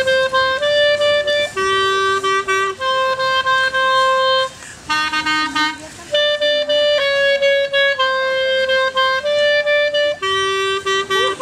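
Background music: a woodwind instrument playing a slow melody of long held notes, going softer and lower for a moment about halfway through.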